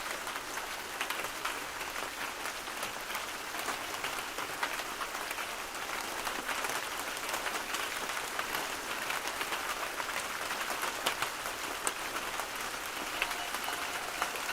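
Steady rain falling, an even hiss made of many small drop clicks. A faint thin steady tone comes in near the end.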